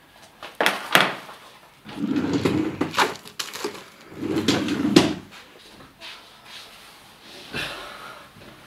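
Two sharp knocks, then a wooden desk drawer sliding open with a scrape and later pushed shut with a knock, with papers in it being handled in between.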